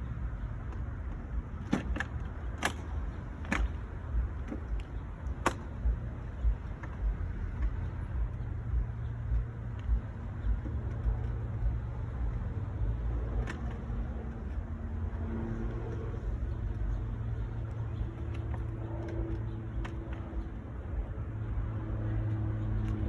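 Several sharp plastic clicks in the first few seconds and one more about halfway, the clips of a new BMW M3 kidney grille snapping into the front bumper as it is pushed in, over a steady low rumble. A low hum joins in the second half.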